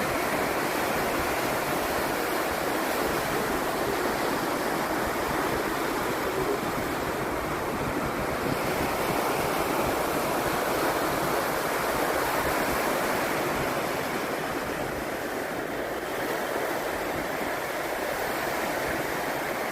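Pacific Ocean surf breaking and washing up the beach: a steady, continuous rushing of waves.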